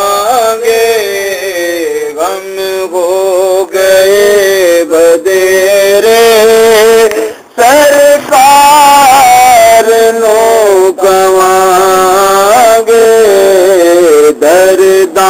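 Background music: a solo voice singing a slow, ornamented chant-like melody in long held phrases over a steady low drone, with a short pause about halfway through.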